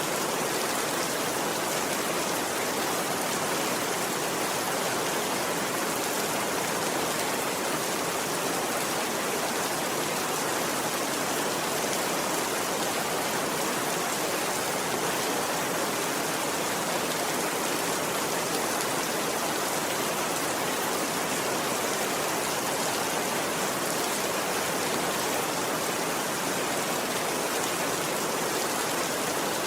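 Steady rainfall: a dense, even hiss of rain that does not change.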